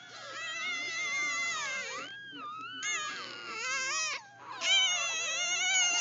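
A litter of newborn Doberman puppies crying and squealing, several high, wavering voices overlapping. They drop off briefly a little past four seconds, then come back louder.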